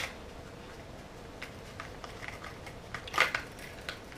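Scattered light clicks of a pistol with a mounted weapon light being handled in a Fobus polymer holster, with a sharper clatter of clicks about three seconds in.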